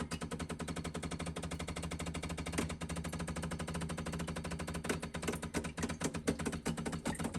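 Decent espresso machine's pump running as the shot starts and the group fills, a rapid even clicking rattle, about a dozen clicks a second, over a steady low hum.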